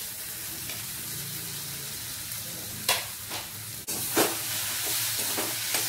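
Onion-tomato masala sizzling steadily in a kadai, with a few sharp scrapes and knocks about three to four seconds in as a metal spatula stirs the fried potato chunks into it.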